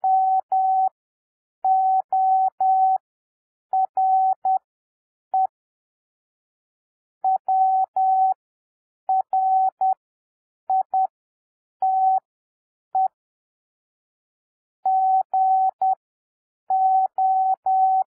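Morse code practice tone, computer-generated: a single steady beep keyed on and off in dots and dashes at 10 words per minute character speed, spread out with long gaps between letters and words to an overall 7 WPM (Farnsworth spacing). It spells out the words "more write" and the start of "go".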